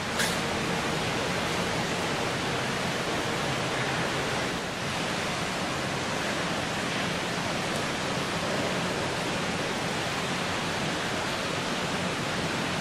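Steady, even hiss with no engine running, and a brief sharp click just after the start.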